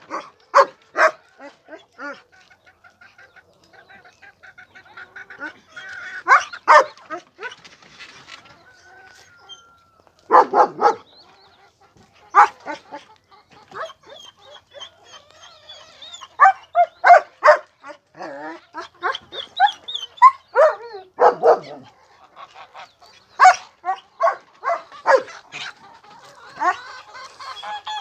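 Animals calling: loud, short cries in clusters of several at a time, with fainter chattering calls in the gaps between.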